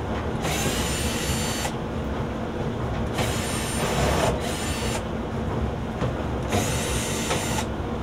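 Cordless drill/driver with a 5/16 nut-driver bit backing out screws on a dryer's front panel: four short whirring runs of about a second each, with pauses between them.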